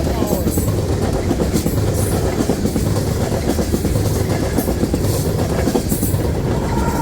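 Canadian National freight train rolling past close by, its cars' wheels clattering steadily on the rails.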